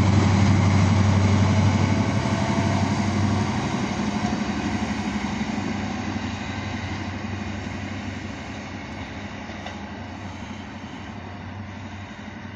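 Class 43 HST power car's diesel engine droning as the train pulls away, the sound fading steadily into the distance.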